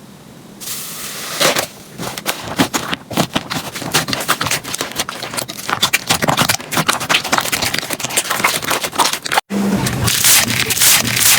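Slime being squeezed and poked, giving a dense, continuous run of crackles and small pops, with a sudden break near the end where one clip cuts to the next.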